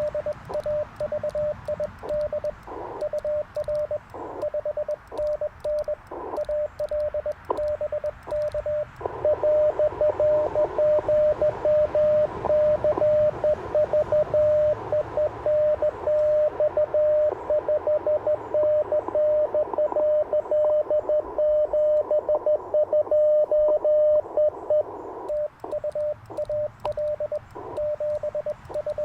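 Morse code (CW) from an Icom IC-705 transceiver: one steady tone keyed in quick dots and dashes over a faint hiss. From about nine seconds in to about twenty-five seconds in, the keying turns louder and denser.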